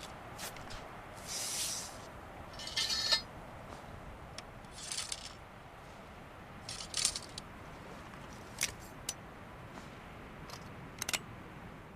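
Springfield Model 1861 rifle-musket being handled and reloaded between shots: a series of short metallic scrapes, rattles and clicks, the loudest a rattle about three seconds in.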